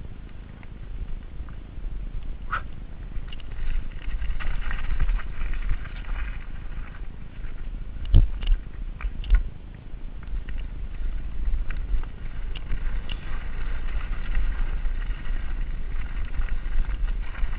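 Full-suspension mountain bike (Giant Reign) descending a dirt singletrack: tyres rolling over dirt and stones while the frame and chain rattle, over a steady low rumble. Sharper knocks come about eight and nine seconds in as the bike hits bumps.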